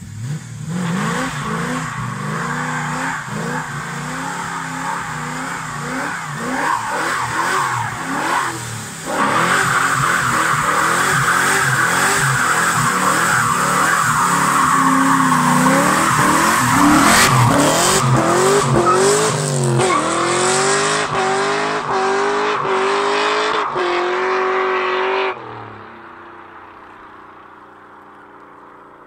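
1969 Pontiac LeMans with a swapped-in 6.0-litre LS V8 and X-pipe exhaust doing a burnout. The engine revs hard, and from about nine seconds in the spinning rear tyres squeal loudly while the engine pitch climbs and drops again and again. The sound cuts off suddenly near the end.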